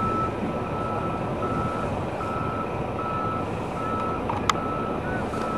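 Electronic beeper sounding one steady high beep over and over, a little more than once a second, over steady outdoor background noise. A single sharp knock comes about four and a half seconds in.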